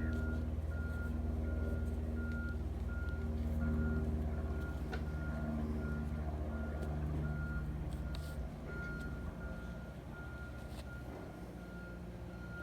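A vehicle's reversing alarm beeping steadily, about two beeps a second, over the running of its engine, which fades after about eight seconds.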